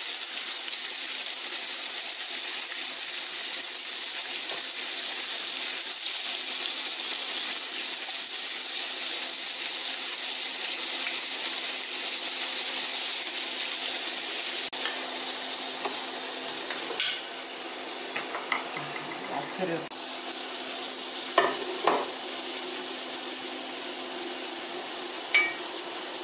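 Sliced pork frying in a pan with a steady sizzle, while metal tongs and kitchen scissors work the meat. A few sharp metal clicks and clinks against the pan come in the second half, and the sizzle briefly dies down a little past the middle.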